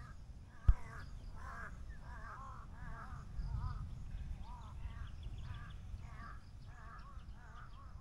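Crows cawing, about a dozen harsh, wavering calls in quick succession, some overlapping. A single sharp knock sounds just under a second in, louder than the calls, over a low rumble.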